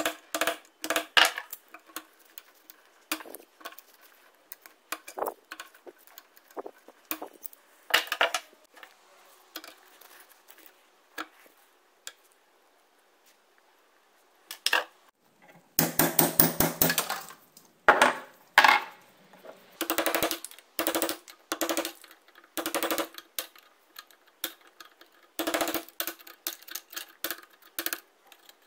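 Metal being handled at a workbench during an axe restoration: irregular clinks, knocks and short scrapes, with a denser stretch of rapid scraping about sixteen seconds in.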